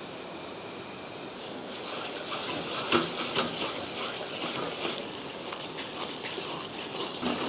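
Thick, hot bottle gourd halwa being stirred with a wooden spatula in a metal pot, a sticky scraping with irregular clicks and pops as it cooks down with ghee mixed in. The stirring starts about a second and a half in, after a steady low hiss.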